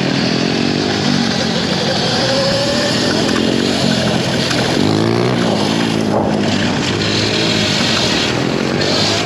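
Dirt bike engine running under way, its revs rising and falling several times.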